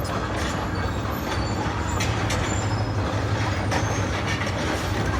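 Steady low diesel engine rumble of heavy machinery, with a few faint high squeaks and clicks over it.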